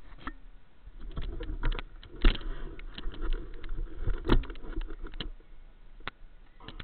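Handling noise on a body-worn action camera: scattered clicks and knocks, two louder thumps about two and four seconds in, with rustling and a low rumble.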